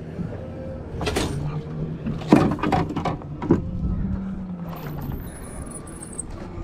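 Knocks and clatter of a heavy rod and big-game reel being handled, with a cluster of hits a little past the middle, over a low steady hum.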